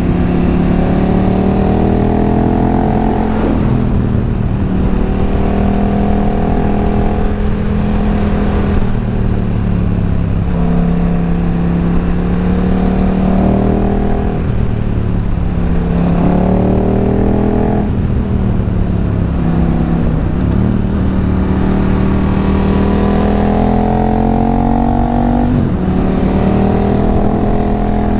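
Big sport naked motorcycle accelerating hard through the gears, its engine note climbing and then dropping back at each upshift, several times, with wind rushing past the helmet.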